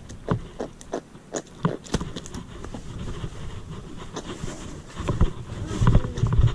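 A hooked lookdown (moonfish) flapping on the line against the fibreglass side of the boat: a run of irregular slaps and knocks over a low rumble, which swells near the end as the fish is swung aboard.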